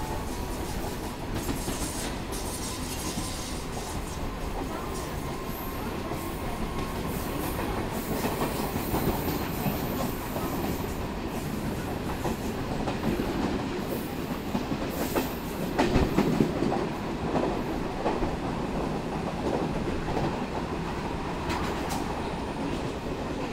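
Steady train running noise heard through the open doorway of a moving electric multiple unit, with wheels clattering over rail joints and the covered wagons of a goods train rolling close alongside on the next track. The rumble swells louder about sixteen seconds in.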